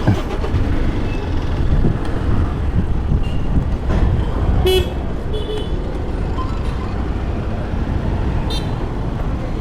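Motorcycle riding through town traffic: a steady engine and road rumble, with short vehicle horn toots about halfway through and again near the end.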